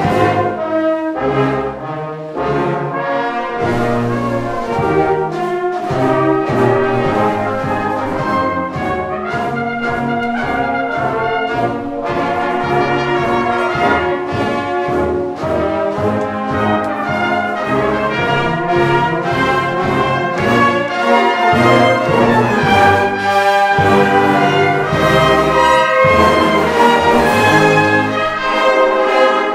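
Salvation Army brass band of cornets, euphoniums, trombones and tubas playing a piece together, getting somewhat louder toward the end.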